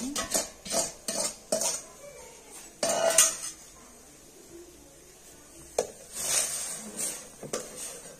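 Steel slotted ladle and spoon clinking, knocking and scraping against a metal pot while rice-flour batter is poured in and stirred: a run of quick clinks, a longer scrape about three seconds in, and more knocks near the end.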